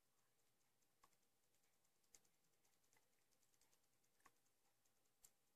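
Near silence: room tone with a few faint, short clicks about once a second.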